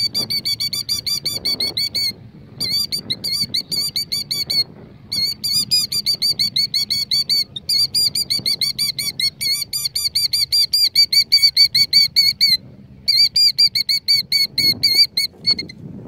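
Killdeer giving its rapid, trilling alarm call, about eight high notes a second in long runs broken by brief pauses, while defending its nest with a broken-wing distraction display.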